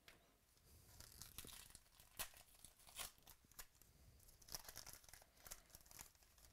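Foil trading-card pack being torn open by hand: a faint run of quick crinkles and tearing crackles from the wrapper.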